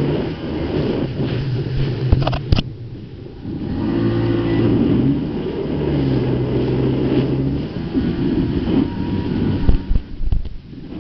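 Jet ski engine running under throttle, its pitch rising and falling several times as the rider works the throttle, over a wash of water spray. A few sharp splashes and knocks near the end as the craft hits the chop.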